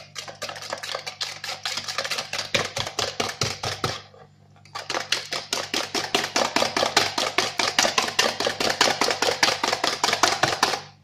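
Wire whisk beating a runny egg, sugar and oil mixture in a plastic bowl: fast, rhythmic clicking of the whisk against the bowl, about six strokes a second, with a brief pause about four seconds in.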